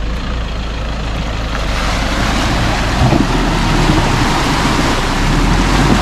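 Toyota Hilux pickup truck fording a shallow river: its engine running under the rush and splash of water around the wheels, growing louder from about two seconds in as the truck comes closer.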